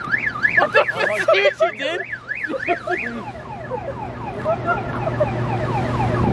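Car alarm going off and cycling through its tones: a fast rising-and-falling wail of about four sweeps a second, then a run of short falling chirps.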